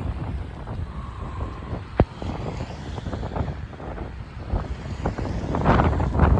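Wind buffeting the microphone, a low gusty rumble, with one sharp click about two seconds in.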